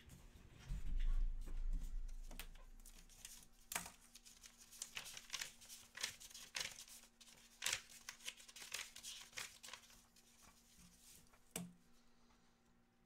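Off-camera handling noises: irregular light clicks and rustling, with a low thump about a second in and a last sharp click near the end.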